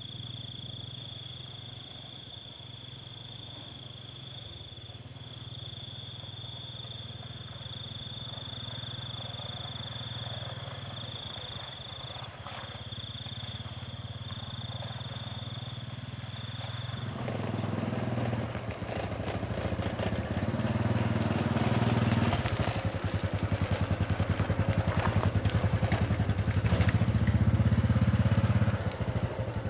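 Motorcycle engine running as it rides along, faint and steady at first, then much louder and fuller from a little past halfway, with the level dropping back just before the end.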